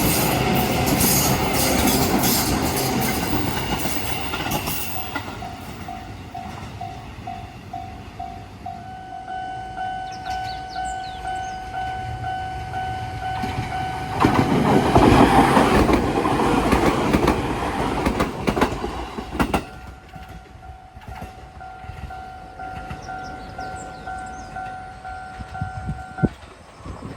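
A train passes over a level crossing with its wheels clattering, fading away over the first few seconds, while the crossing's warning bell rings on in a steady, repeating clang. A second loud rush of train noise comes through the middle, and the crossing bell stops abruptly near the end.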